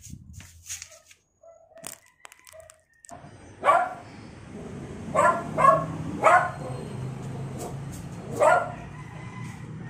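A dog barking five times: one bark, a quick run of three, then one more near the end.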